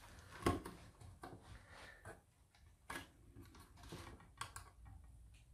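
Faint, scattered clicks and taps of fingers working the plastic ribbon-cable holders on a camper control unit's circuit board, with a slightly louder click about half a second in.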